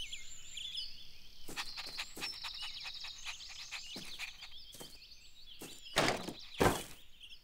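Cartoon garden ambience of chirping birdsong with a few light taps, then two loud knocks about six seconds in as the doghouse's wooden name sign drops off.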